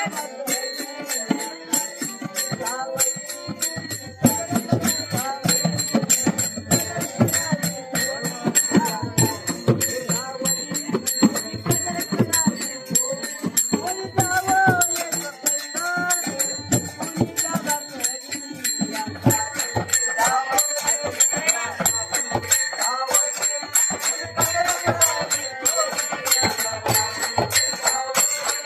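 Lively folk music: fast, steady percussion strokes under jingling metal percussion and a wavering melody line.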